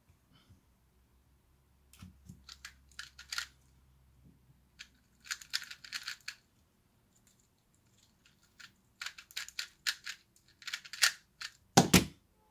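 Plastic 2x2 speed cube turned fast in quick bursts of clicky, rattling turns with short pauses between, then a loud slap of both hands onto a stackmat timer's pads about twelve seconds in, which stops the timer at the end of the solve.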